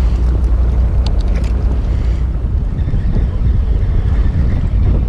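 Wind rumbling on the microphone over the steady noise of a fishing boat at sea, with a few light ticks about a second in.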